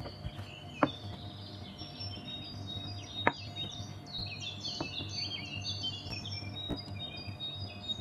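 Small birds chirping and twittering continuously in quick, overlapping high calls. A few sharp knocks cut through, the loudest about a second in and just after three seconds.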